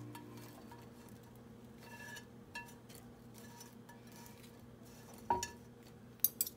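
Stainless steel chopsticks tapping and scraping against a nonstick frying pan and a ceramic plate as toasted bread cubes are pushed onto the plate, with light clinks throughout. A sharper clink comes about five seconds in, and two quick clicks come near the end.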